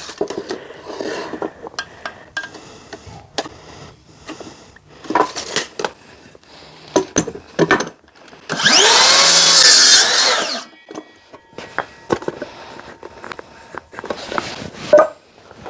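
A small power tool runs for about two seconds near the middle, its pitch rising and then falling, among scattered knocks and clatter.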